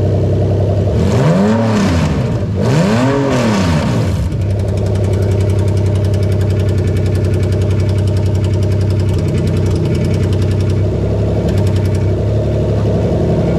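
Toyota 2JZ-GE VVT-i straight-six engine idling, revved twice in quick succession about a second in, the pitch rising and falling each time, then settling back to a steady idle.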